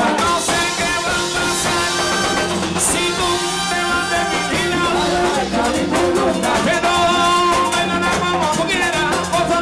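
Live plena music: a lead singer over a band of panderos (hand frame drums), congas and a drum kit, playing steadily without a break.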